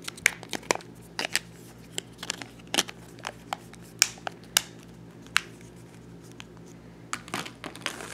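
Sharp plastic clicks and taps as the battery and back cover of an Alcatel OT510 flip phone are handled and pressed into place, about a dozen separate clicks spread over several seconds. Near the end comes a quicker run of crinkly clicks as a plastic bag is rustled, over a steady low hum.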